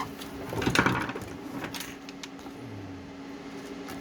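Small cooling fan running with a steady hum. About a second in there is a short burst of handling clatter and clicks.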